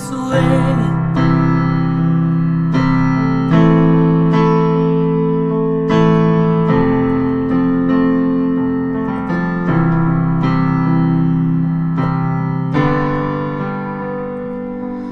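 Background piano music: slow chords, a new one struck every second or so and left to ring.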